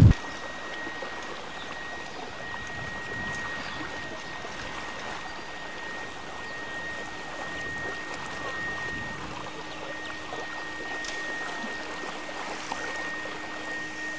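Lake water lapping and trickling, quiet and even, with a steady high-pitched whine running through it and a faint low hum joining about halfway.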